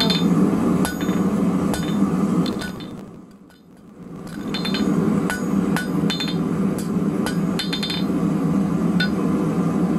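Hand hammer striking a red-hot 12 mm round steel bar on an anvil, drawing the taper point of a ground anchor: sharp ringing blows about once a second, over a steady low roar from the gas forge. The sound fades out and back in briefly near the middle.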